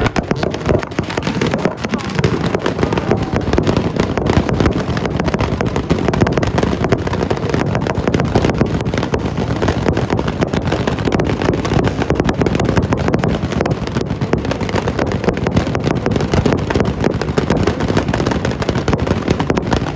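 Race car engine running hard with a dense, rapid crackle of exhaust pops, loud and unbroken.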